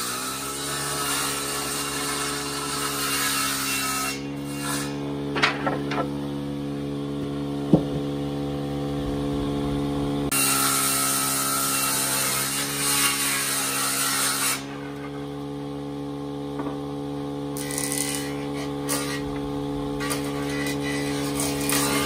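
Surface planer running with a steady hum while a wooden plank is fed across its cutter block; the loud shaving of the wood comes in two passes, one through the first four seconds and another from about ten to fourteen seconds in, with a couple of sharp knocks between as the board is handled and lighter cutting near the end.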